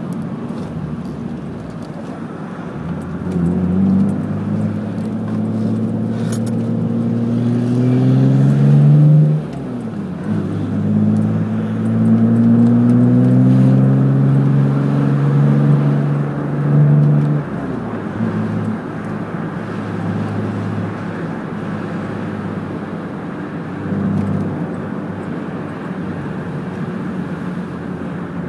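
BMW M3 engine heard from inside the car, pulling hard twice with rising pitch, with a short dip between as it shifts up, then easing off to a steady cruise about two-thirds of the way through.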